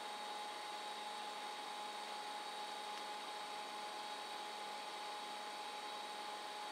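Steady background hiss with a faint constant electrical hum and high whine, unchanging throughout, with no distinct events: room tone.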